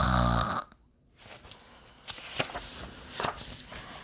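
A person's loud, exaggerated imitation of a snore, falling in pitch as it ends about half a second in. Faint scattered taps and clicks follow.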